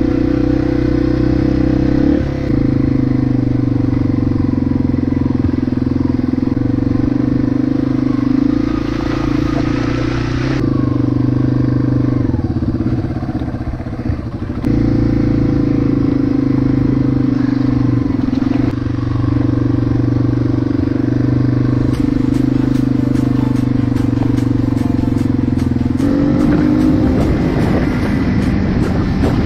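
Yamaha TW200's single-cylinder four-stroke engine running under way, heard up close from on the bike. Its note drops and picks up again several times and climbs in pitch near the end.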